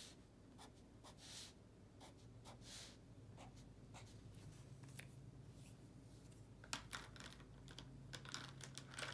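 Felt-tip marker drawing short strokes on paper: a quick, irregular series of faint scratches.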